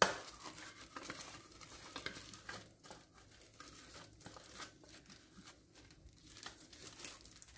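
Disposable plastic gloves crinkling and fingers scraping ground herb and chilli mixture off the inside of a plastic food-processor bowl: faint, irregular rustles and small scrapes.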